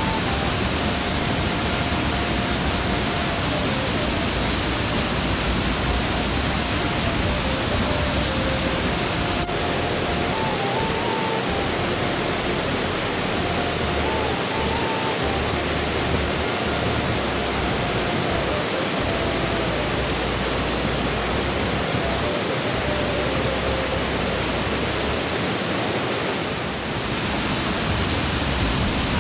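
Waterfall pouring into a rocky pool, a steady, unbroken rush of falling water.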